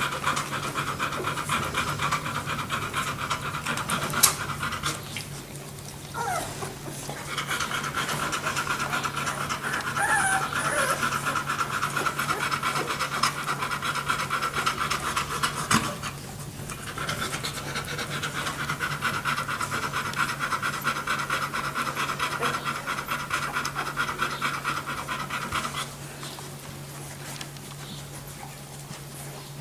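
Yellow Labrador retriever bitch panting rapidly with her mouth open, pausing briefly twice and stopping a few seconds before the end.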